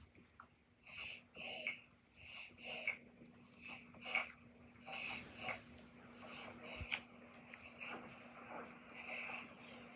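An animal snoring in its sleep: quick, wheezy, hissing breaths that come in pairs, in and out, about seven breaths in all at a steady pace.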